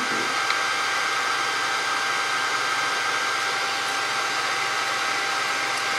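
Steady whir of blown air from a diode laser engraver setup, with a faint steady whine in it.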